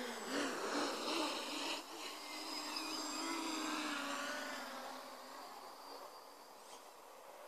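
Quadcopter's electric motors and propellers buzzing in flight, the pitch wavering up and down with the throttle. Loudest in the first few seconds, then fading as the craft draws away.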